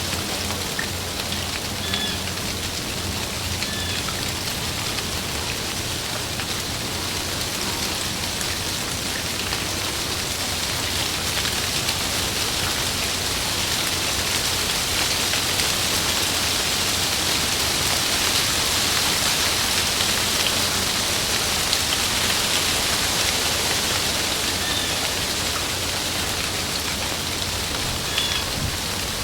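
Heavy rain falling on tree leaves: a dense, steady hiss that grows a little louder around the middle.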